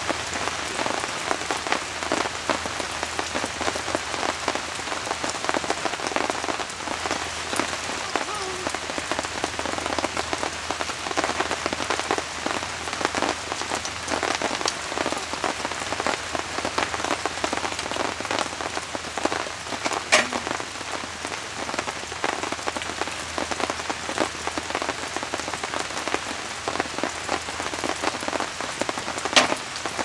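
Steady rain, many close drops striking a surface in a dense, even patter. Two sharper clicks stand out, one about two-thirds of the way through and one near the end.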